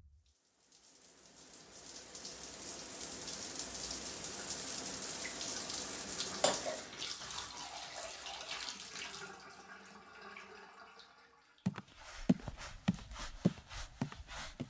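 Shower running with a steady hiss of spray, which drops after about six seconds and dies away by about eleven as the water is turned off. Then comes a run of irregular light knocks and steps as someone walks out of the bathroom.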